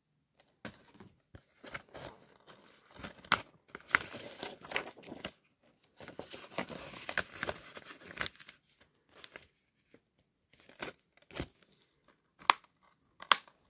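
Hands handling a plastic Blu-ray case and its paper insert: rustling and crinkling with scattered plastic clicks and taps, then two sharp clicks near the end, the loudest sounds.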